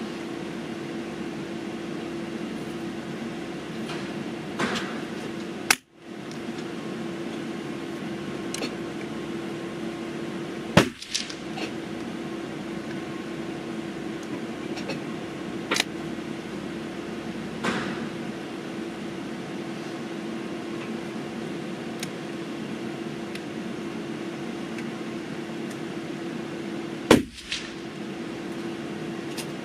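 Pedersoli Black Widow .22 LR rifle firing three single shots, several seconds apart, with quieter clicks and knocks in between, over a steady hum.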